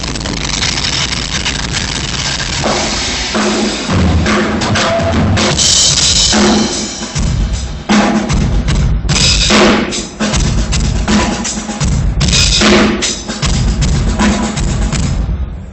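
Drum kit played hard and loud: rapid bass drum under a constant cymbal wash, with crash-cymbal accents every second or two. The recording is close and harsh, as from a phone microphone. Near the end the playing breaks off.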